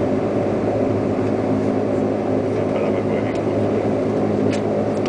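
The Dash 8-200's Pratt & Whitney Canada PW123 turboprop engines and propellers running steadily, heard from the cabin beside the engine nacelle: an even drone with a hum of several held tones. A couple of faint clicks come in the second half.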